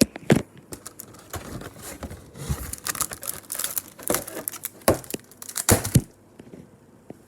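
Crinkling and rustling of snack packaging being handled, with sharp knocks and clicks mixed in, for about six seconds before it goes quiet near the end.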